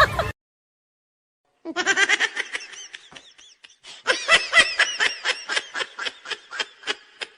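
Meme sound-effect clip of a person laughing in quick, high-pitched repeated bursts, starting about two seconds in after a silent gap, easing off briefly, then picking up again.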